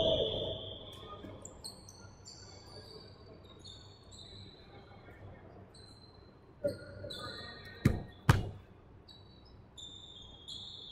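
Sneakers squeaking on a hardwood gym floor, many short high squeaks scattered throughout, with the tail of a referee's whistle fading out at the start. About two-thirds through, a few sharp thuds close by, the two loudest less than half a second apart.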